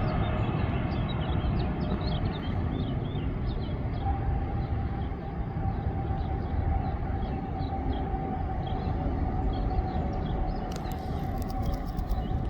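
Boeing 777-300ER's GE90 jet engines running as the airliner rolls along the runway after landing: a steady rumble, with a steady whine coming in about four seconds in.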